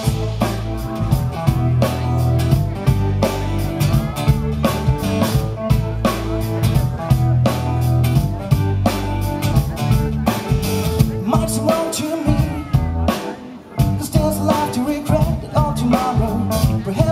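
Live band playing a song: acoustic guitar, electric bass, keyboard and drum kit. The bass and drums drop out briefly about two-thirds of the way through, then the band comes back in, and the lead vocal sings again near the end.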